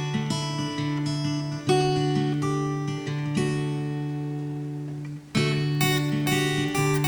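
Instrumental break of a nursery-rhyme song with no singing: steady chords and melody notes, with a brief drop-out about five seconds in before the music resumes.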